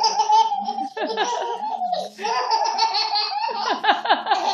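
A 13-month-old baby laughing hard in rapid repeated bursts, with a short break about two seconds in.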